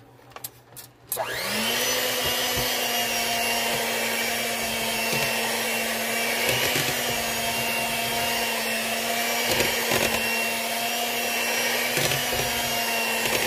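Electric hand mixer switched on about a second in. Its motor rises in pitch as it spins up, then runs steadily as the beaters work through cake batter in a bowl. A few knocks sound over the motor.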